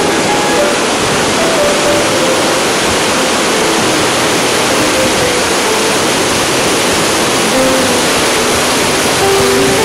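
Steady rush of a waterfall cascading down a rocky gorge, with soft music notes faintly underneath.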